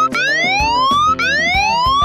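Phone anti-theft alarm from the Don't Touch My Phone app sounding a siren: a rising whoop repeated about once a second, with music underneath.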